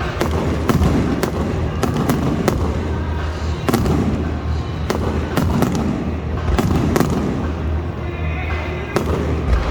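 Fireworks going off: a dozen or more sharp bangs and cracks at irregular intervals, over music and a steady low rumble, picked up on a smartphone microphone.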